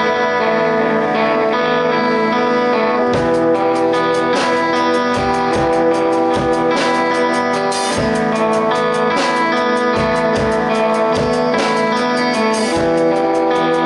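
A band playing, led by guitars; about three seconds in, drums come in and keep a steady beat under the held guitar notes.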